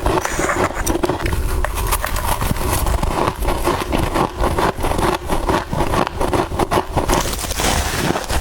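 Close-miked biting and chewing of soft freezer frost: many small crunches and crackles in quick succession.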